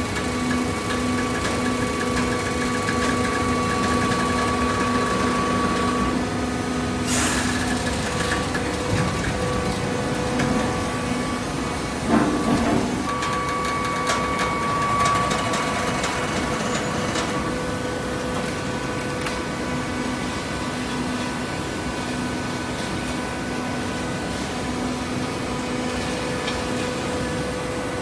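Horizontal hydraulic baler running: a steady machine hum with several steady tones, broken by a sharp click about seven seconds in and a clunk about twelve seconds in.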